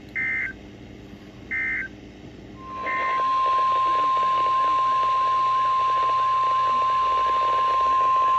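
Three short screeching bursts of NOAA Weather Radio SAME digital data, just over a second apart. The steady 1050 Hz Weather Radio warning alarm tone comes in under three seconds in, marking the start of a new warning broadcast.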